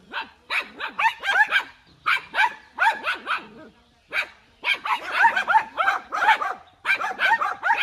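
Small dogs barking at goats in high-pitched yaps, in quick runs of several barks with short pauses between.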